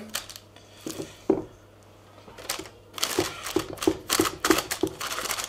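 Wooden spatula scraping and knocking against a stainless steel mixing bowl and a paper-lined pot as sticky seed dough is scooped across: a few scattered knocks, then a quick run of taps and scrapes from about two and a half seconds in.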